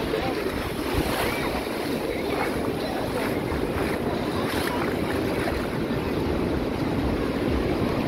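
Ocean surf breaking on a sandy beach, a steady wash of waves, with wind buffeting the microphone and faint voices of beachgoers behind it.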